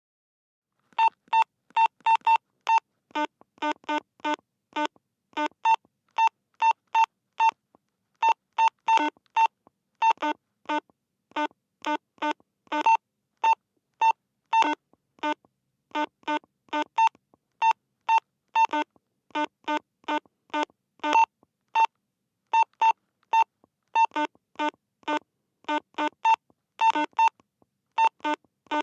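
Walkie-talkie radio beeping: short electronic beeps, singly and in quick runs of two or more, the beeps this radio gives when push-to-talk is keyed and when the channel is changed. They begin about a second in and repeat irregularly throughout.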